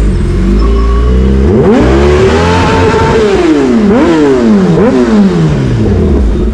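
Sport motorcycle engine idling, then revved. About a second and a half in the revs rise and hold briefly before falling away. Two quick throttle blips follow near the middle, then the engine settles back toward idle.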